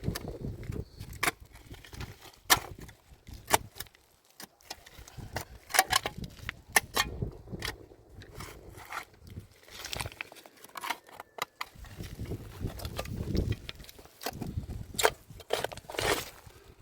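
Scattered sharp clicks and knocks at irregular intervals, with low rumbling noise between them.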